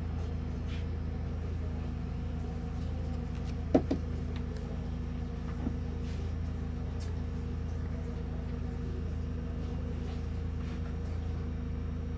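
Steady low electrical hum, with two light clicks about four seconds in and a fainter one a little later.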